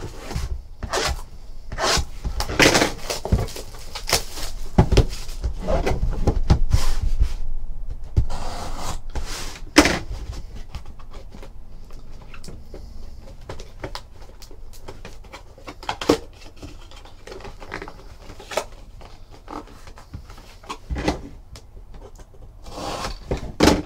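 Hands handling and opening a cardboard trading-card box: scraping, rustling and small knocks, busiest in the first ten seconds, then sparser light clicks.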